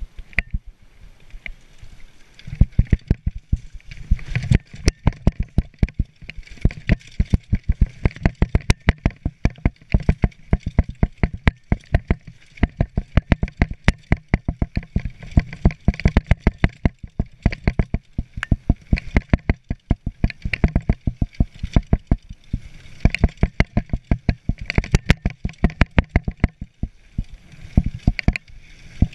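Mountain bike clattering down a rough dirt trail: a rapid, irregular stream of sharp knocks and rattles as the bike jolts over the ground, over a steady hiss of wind. The clatter starts about two seconds in.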